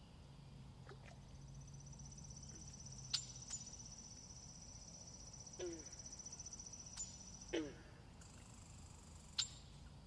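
Pond ambience among reeds, with frogs and birds calling. A long, high, pulsing trill runs for about seven seconds. Over it come a few sharp chirps and, twice in the second half, short calls that drop in pitch. A faint low hum sits under the first few seconds.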